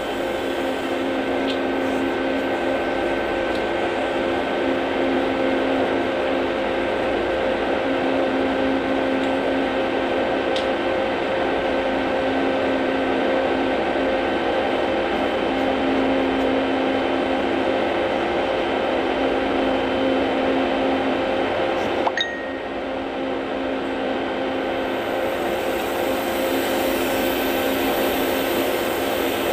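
An electric motor hums steadily under a few light metallic clicks from the hose fittings and gauge valves being handled. The loudest click comes about 22 seconds in.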